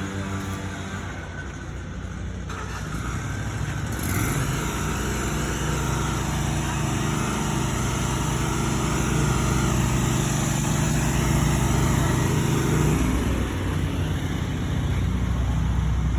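An engine running. Its pitch rises at the start, holds steady through the middle, and drops away about thirteen seconds in, with a low rumble underneath.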